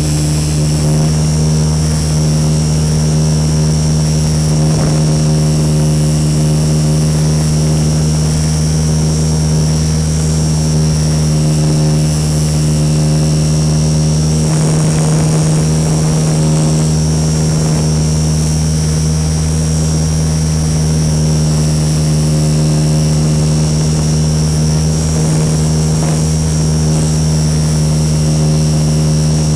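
RC SuperCub model plane's motor and propeller running steadily in flight, picked up by the camera on the airframe: a loud, even drone with a steady high whine over it. The lowest part of the drone briefly drops away about halfway through. The airframe shakes a great deal, which the owner cannot account for.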